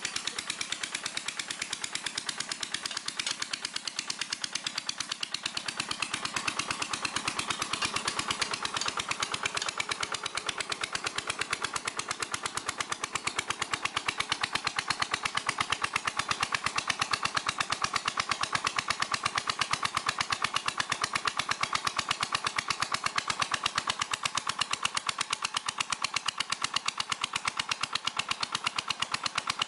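Small diesel engine running steadily with a rapid, even beat, belt-driving a water pump that forces water down the pipe to jet-drill a well.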